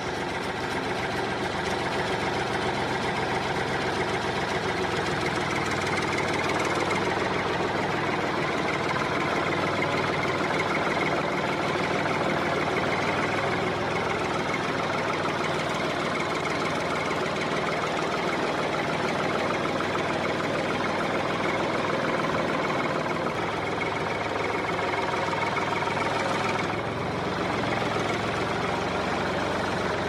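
A small engine running steadily at an even speed, with a brief dip in level near the end.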